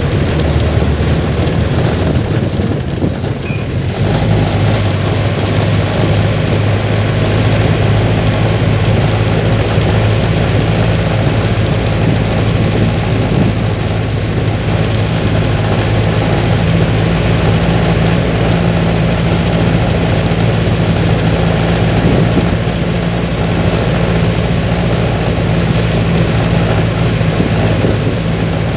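Diesel engine of a Mercedes-Benz LO 814 Marcopolo Senior bus, heard from the driver's cab while driving slowly. The engine note steps up about four seconds in and then runs steadily under a constant haze of road noise.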